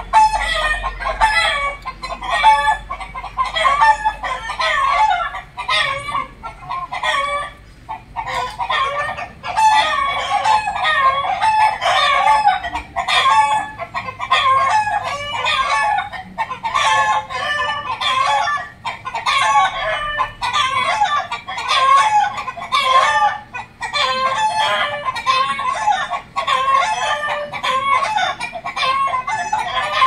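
Country chickens calling almost without pause, loud and overlapping clucks with roosters crowing among them.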